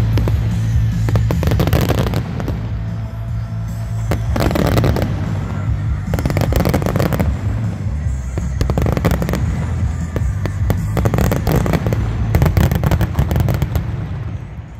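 Dense aerial fireworks barrage: many shells bursting at once in rapid overlapping bangs and crackling, with music playing underneath. The barrage dies away near the end.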